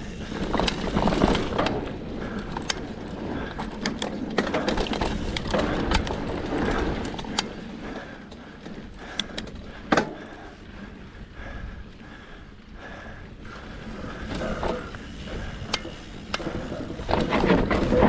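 Mountain bike rolling fast down a dirt singletrack: tyre noise on the dirt with the bike's chain and parts rattling and many sharp clicks and knocks over bumps, the loudest knock about ten seconds in. Wind on the microphone grows near the end as speed picks up.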